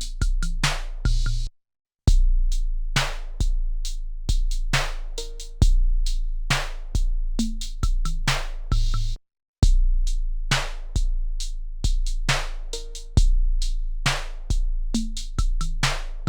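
Drum-machine beat played back from an Akai MPC sampler: sharp drum hits over deep held bass notes, repeating about every eight seconds. The beat cuts to silence briefly twice, between passes of the loop.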